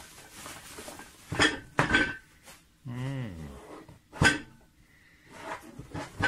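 Several sharp knocks and clinks of hard objects on a tabletop, some with a brief ring, as a cardboard eyepiece box is unwrapped from bubble wrap and handled. About three seconds in there is a short low hum from a voice that falls in pitch.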